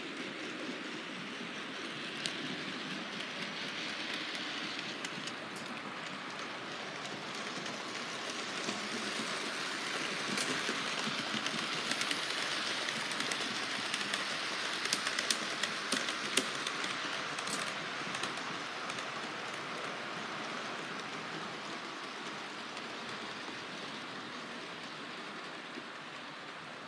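Model train running on the layout's track: a steady rushing rumble that swells toward the middle and fades near the end, with scattered sharp clicks in the middle.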